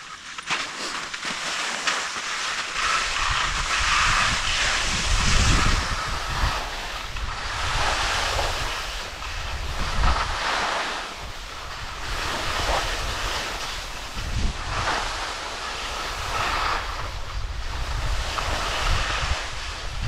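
Skis sliding and scraping over packed snow, a hiss that swells and fades every second or two, with wind rumbling on the microphone underneath.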